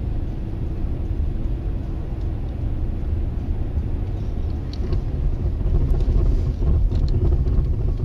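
Steady low rumble of a car driving on a snow-covered road, as heard from the dashcam inside the cabin: engine and tyre noise, growing a little louder in the second half, with a few faint ticks.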